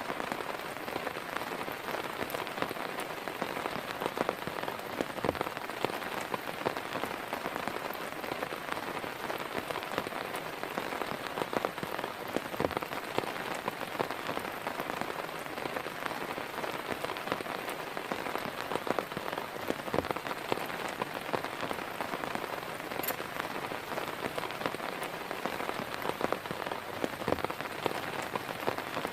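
Heavy rain falling steadily on a surface, a dense even hiss with many individual drops ticking through it and a few heavier drops landing now and then.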